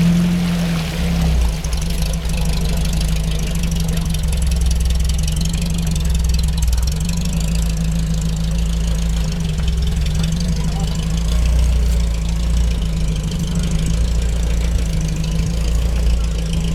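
Off-road vehicle's engine running steadily at low speed, a deep even drone that holds its pitch without revving.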